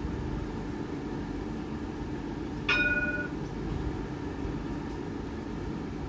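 Steady low hum of a light rail tram standing at the platform, with a single short bell-like ding about two and a half seconds in.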